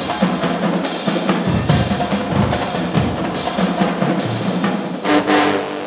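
Marching band drumline playing a driving groove on snares and bass drums, with heavy hits a little more than once a second. A brass chord comes in near the end.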